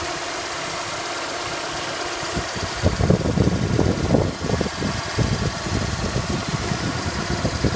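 Honda F20B5 four-cylinder engine idling while warming up, steady at first; from about three seconds in a rough, uneven low grinding comes and goes over the idle. The owner hears this grinding only during warm-up at 1000–1250 rpm and does not know its cause.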